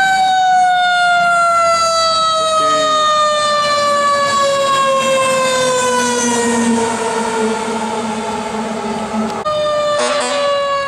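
Fire truck siren wailing, its pitch falling slowly and steadily. It breaks off abruptly near the end and resumes at a slightly higher pitch, still falling.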